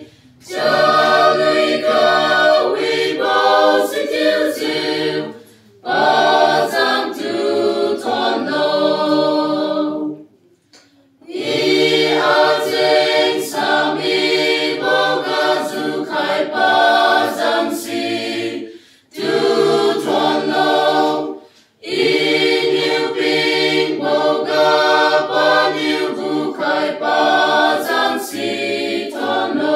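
Mixed choir of young men and women singing a hymn unaccompanied, in several phrases separated by brief pauses for breath.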